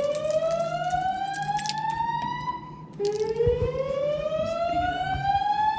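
System Sensor SpectrAlert Classic speaker strobes sounding the slow whoop fire alarm evacuation tone. It is a loud tone rising steadily from low to high that cuts off about two and a half seconds in, then starts again from the bottom about three seconds in.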